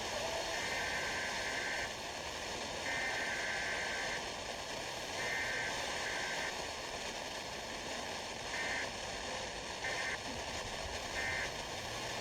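Emergency Alert System SAME data bursts received through radio static: three buzzing digital header bursts of about a second and a half each, then three short bursts, the end-of-message code. This closes a Required Weekly Test.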